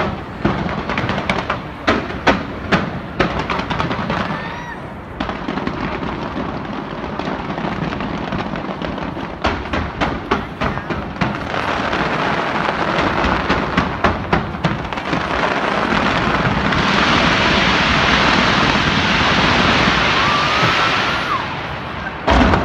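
Large aerial fireworks display: rapid irregular bangs, several a second, that thin out midway, then merge into a dense continuous crackle for several seconds, with one more loud bang near the end.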